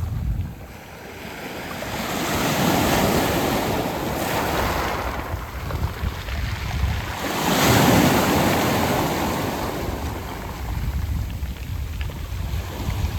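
Sea waves surging in and washing over a beach of smooth round pebbles (mongdol), in two swells. The second, about eight seconds in, is the loudest.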